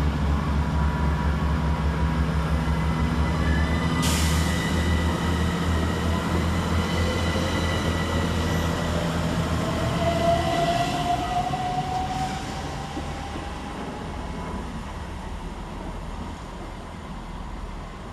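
Two trains pulling out together: a Class 165 diesel multiple unit's engine running with a steady low drone that drops away about ten seconds in, and a rising whine from an accelerating Class 387 electric unit. A brief hiss comes about four seconds in, and the sound fades as the trains move off.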